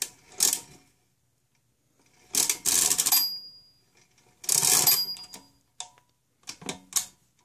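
DIMM pinwheel mechanical calculator being cranked: two rattling turns of the handle, each ending in a short ding of its bell. The bell rings when a subtraction overdraws past zero and the result register turns to all nines, and it rings again on the roll-back turn. A few lighter mechanical clicks come near the end.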